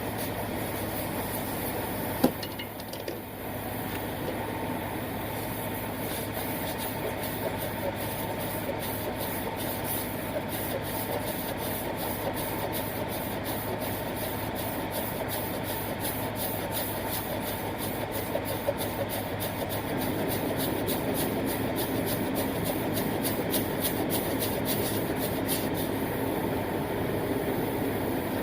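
Diesel truck engine idling steadily, with a fast, even ticking over it through most of the stretch. There is a single sharp knock about two seconds in.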